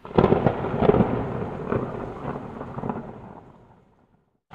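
Thunder sound effect: a sudden loud crack, then a crackling rumble with several swells that dies away about four seconds in.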